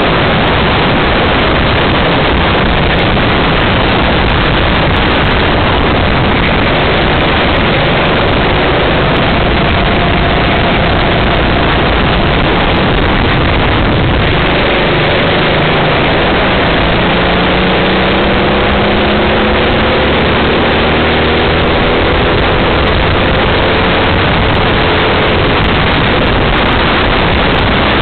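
Kart at racing speed recorded from onboard: a loud, even rush of wind noise on the small camera's microphone, with the kart's engine note faintly heard rising and falling through the corners between about ten and twenty-five seconds in.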